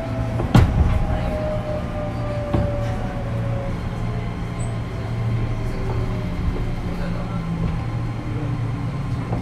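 Onboard running sound of a JR East 205 series 5000 subseries electric train with a Toyo IGBT VVVF inverter: steady low hum with inverter and traction motor tones slowly falling in pitch. A sharp knock comes about half a second in, and a lighter one a couple of seconds later.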